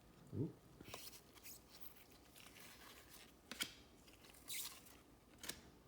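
Faint, crisp rustles and scrapes of trading cards being slid and flipped by hand, a handful of short ones spread through the seconds.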